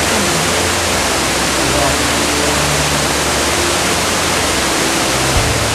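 Waterfall rushing: a loud, steady, even rush of falling water, with faint voices underneath.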